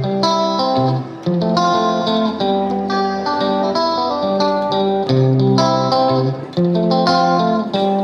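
Instrumental background music: a melody of held, changing notes with a steady rhythm.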